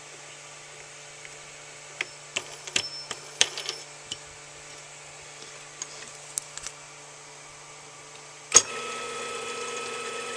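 Sharp metallic clicks and knocks of a steel workpiece and tools being handled at a stopped metal lathe, over a low steady hum. Near the end a loud knock comes, and the lathe's motor runs steadily for about two seconds.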